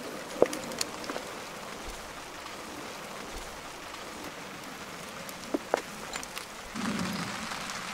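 A steaming lidded pan on campfire embers hissing steadily, with a few sharp crackles from the fire.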